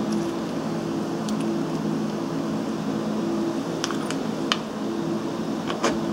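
A few short clicks and taps as small metal parts are handled while a grinding wheel, its nut and washers are taken off a small grinder spindle, over a steady low hum.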